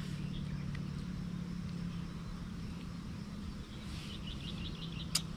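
Outdoor background of a steady low hum, with a short rapid trill of a bird about four seconds in and a sharp click near the end.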